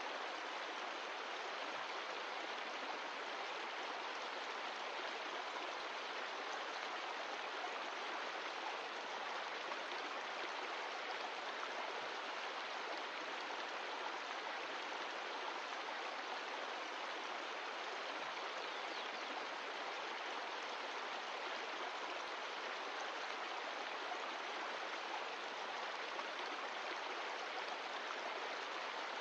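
Mountain stream of glacial meltwater rushing steadily over rocks, an even, unbroken rush of water.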